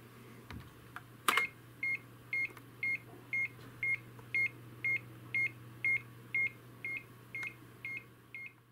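DEC VT320 terminal's bell beeping in a steady loop: short high beeps twice a second, set off by a shell loop that sends the BEL character every half second. A sharp click comes just before the beeps start, over a steady low hum.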